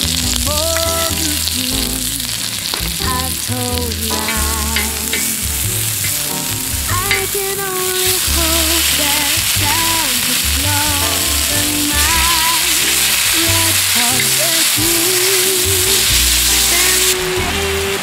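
Sliced onion and beef sizzling on a hot multi griddle plate, a steady hiss of frying that grows louder from about halfway and drops away shortly before the end.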